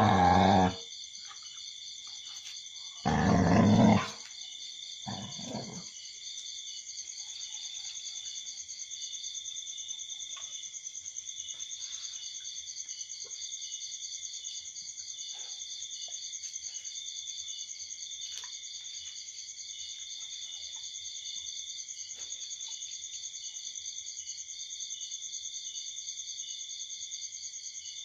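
Dogs growling while they play-fight: one growl at the start, a louder one about three seconds in and a short one around five seconds. Under and after them, a steady pulsing chorus of night insects.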